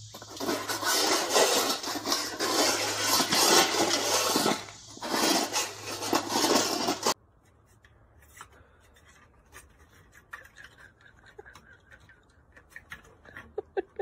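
Husky crunching dry kibble from a stainless steel bowl: dense crackly chewing with kibble clattering against the metal, over a low hum, with a brief pause midway. It cuts off suddenly about seven seconds in, leaving a much quieter stretch with faint ticks.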